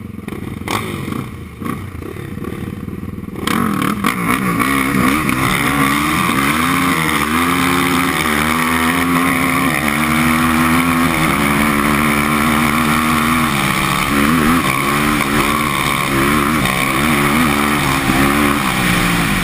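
Yamaha sport ATV engine getting louder about three and a half seconds in as the quad speeds up. It then runs hard at speed, its pitch rising and falling with the throttle.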